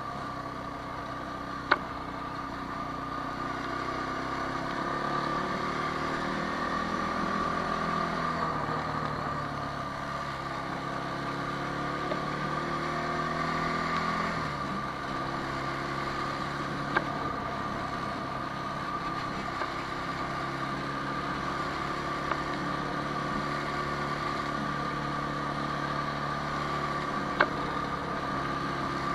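Quad bike (ATV) engine running at low speed, its note rising and falling with the throttle and dropping sharply about fourteen seconds in, over a steady high whine. Three sharp clicks are heard, near the start, about halfway and near the end.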